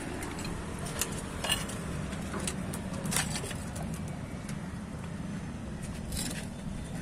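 A steady low rumble of outdoor background noise, with a few light taps and clicks scattered through it.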